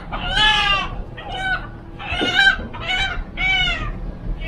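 Chickens calling, a quick string of short pitched calls, about six in four seconds.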